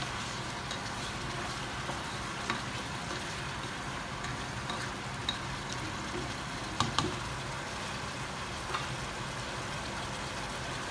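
Chicken pieces in soy sauce sizzling steadily in a pot, with a few light knocks, two close together about seven seconds in.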